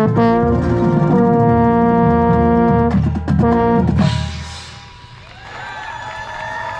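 Marching band brass, heard close to the euphonium, playing loud held chords with sharp drum hits, then cutting off suddenly about four seconds in. Quieter crowd voices and whoops follow.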